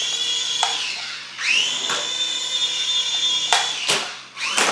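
Air Hogs Axis 300X toy RC helicopter's small electric rotor motors whining: the whine cuts out about half a second in, spins up again at about a second and a half, and holds steady. Two sharp knocks follow at about three and a half seconds, then the motors spin up again near the end.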